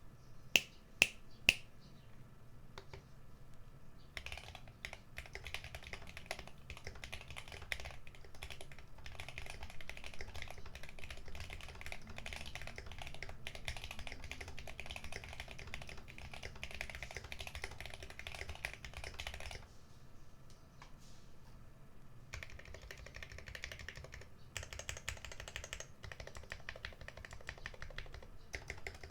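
Three sharp clicks in the first second and a half, then fast typing on a GMMK Pro mechanical keyboard with Akko Jelly Black linear switches and GOAT stabilizers. The typing stops for about two seconds near twenty seconds in, then starts again.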